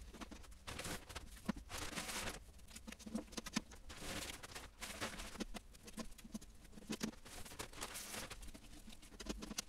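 Milled grain pouring from a plastic bag into the mash water of a stainless steel mash tun while doughing in, with irregular rustling of the plastic bag and a few light knocks.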